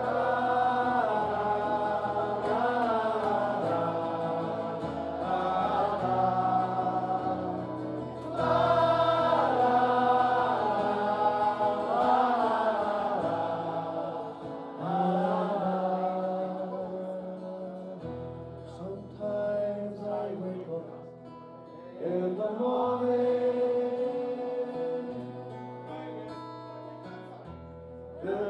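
A man singing a slow ballad live over strummed acoustic guitar, the guitar holding long low notes that change every few seconds.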